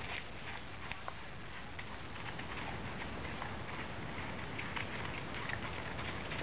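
Faint hoofbeats of a horse cantering over leaf-covered ground, as light irregular thuds over a steady outdoor hiss.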